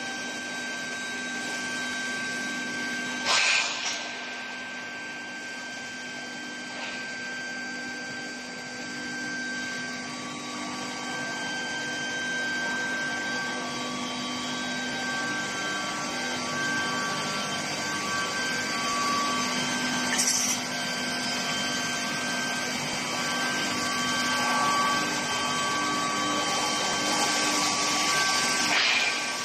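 Steel pipe induction tempering line running: a steady machine hum with several steady tones over a hiss. Short louder bursts of hiss come about three seconds in, about twenty seconds in and near the end.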